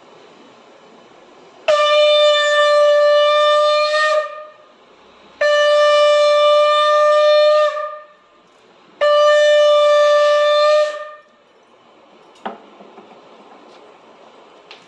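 Conch shell (shankh) blown three times in long, steady blasts of about two and a half seconds each, each dipping in pitch as it ends: the conch sounded to close a Hindu puja.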